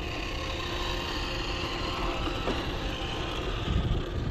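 A vehicle running steadily, with a faint steady whine over a noisy hum, and a few low thumps near the end.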